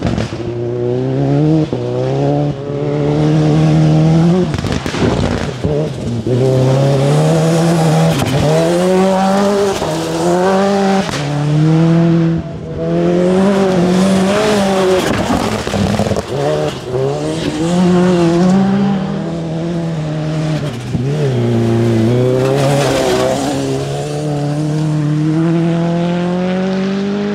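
Rally car's turbocharged Mitsubishi 4G63 four-cylinder engine driven hard on gravel: the engine note climbs again and again and drops back at each gear change or lift, with tyre and gravel noise over it. It fades out at the very end.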